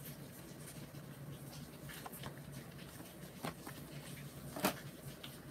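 Faint clicks and taps from a plastic blister pack holding a die-cast toy car being handled, a few scattered knocks with the loudest about four and a half seconds in, over a low steady hum.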